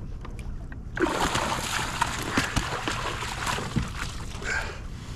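Water splashing hard for about three and a half seconds, starting a second in: a hooked fish thrashing at the surface beside a kayak.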